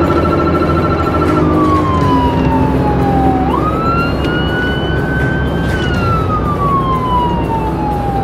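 Electronic police siren: a fast pulsing tone at one pitch, which about a second and a half in changes to a slow wail, falling in pitch, rising quickly, climbing slowly and falling again. The siren sounds over steady road noise.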